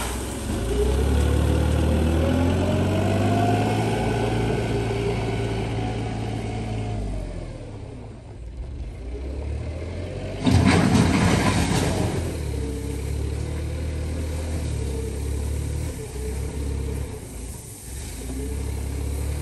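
Compact wheel loader's engine running and revving, the pitch rising and then easing off over the first several seconds. About ten seconds in, a loud rush of gravel clattering for over a second as the bucket drives into a gravel pile, then the engine runs on steadily.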